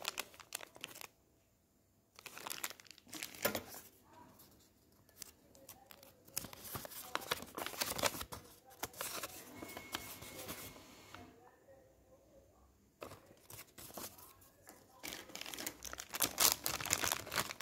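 Thin clear plastic bag crinkling and tearing as a small diecast toy car is taken out of it, with a paper leaflet and cardboard box rustling as they are handled. The rustling comes in irregular bursts with a couple of short pauses.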